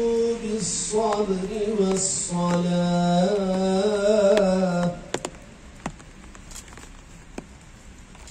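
A man chanting a Quran recitation in a melismatic style, with long held and ornamented notes, which breaks off about five seconds in. A few faint knocks follow over quiet outdoor background.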